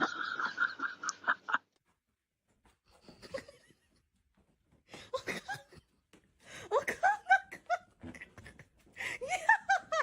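A person laughing in several short bouts, with quiet gaps between them.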